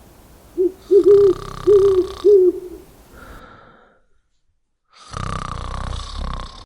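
Cartoon night sound effects: an owl hoots four times over a long snore, and after a short silence comes another snore.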